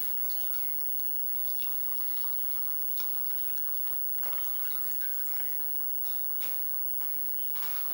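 Fresh green juice being poured into a glass: a thin trickle and drips, with a few light taps.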